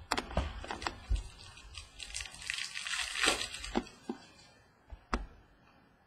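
Baseball trading cards being handled and shuffled: cards sliding and clicking against one another, with a longer scraping rustle about two seconds in and a few single clicks near the end.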